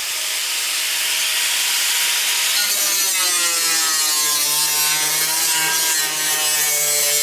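Angle grinder with a cutting disc cutting through the sheet-steel wheel-arch guard of a car: a steady hiss of cutting with a motor whine that sags in pitch about three seconds in as the disc bites, then holds.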